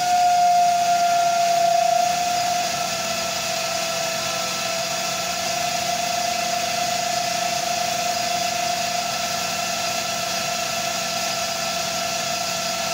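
Lab-Volt DC motor and dynamometer set running with a steady whine. About two seconds in the pitch drops slightly and the sound eases, as load is put on the dynamometer and the motor slows from about 1800 rpm.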